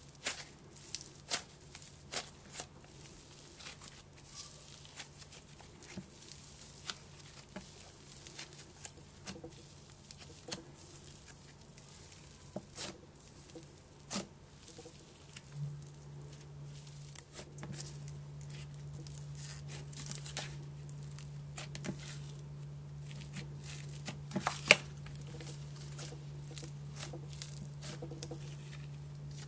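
Fluffy pink cloud slime squeezed, pressed and stretched by hand, giving scattered crackles and soft tearing pops. A steady low hum runs underneath and grows louder about halfway through.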